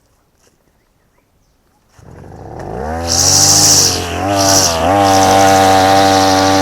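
Small-engine brush cutter with nylon trimmer line starting up about two seconds in and revving, its pitch rising, dipping twice, then holding at a steady high speed.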